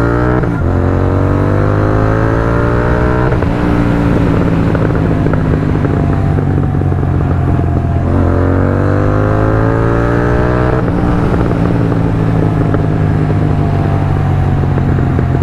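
Royal Enfield 650 parallel-twin on Red Rooster aftermarket exhausts, pulled hard twice: the revs climb for about three seconds, then the throttle snaps shut and the revs fall away. On each overrun the Code6-tuned exhaust pops and crackles.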